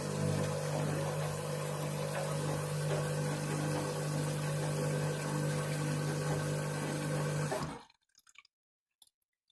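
Candy washing machine running with water rushing in the drum over a steady low hum. The sound cuts off suddenly near the end, leaving near silence.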